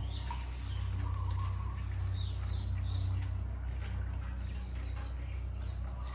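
Steady low drone of the 2016 Porsche 911 Carrera S's flat-six engine running, with birds chirping over it in runs of short falling chirps.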